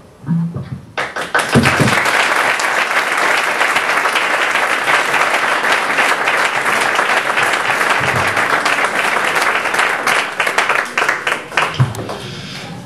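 Audience applauding. The clapping starts about a second in, holds steady, then thins to a few scattered claps near the end.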